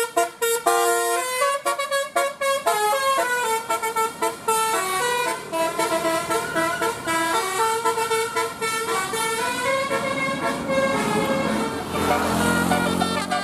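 Musical multi-tone vehicle horn playing a quick tune of stepped notes. Near the end a lower, rougher sound joins it.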